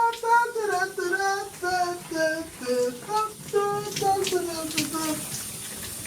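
A child singing a tune in short held notes that step up and down, stopping about five seconds in.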